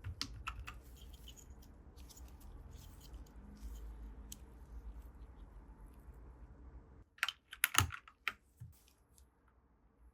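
Keys being pressed on a Dierya DK98SE mechanical keyboard with red linear switches: scattered keystrokes, then a few louder clacks about seven seconds in.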